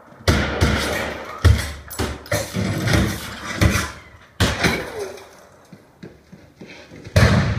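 Movie-clip sound effects played through a JBL Synthesis 5.2 home-theatre system with two subwoofers: a run of sudden heavy hits and slams with deep bass, each one dying away, then a quieter stretch before another loud hit near the end.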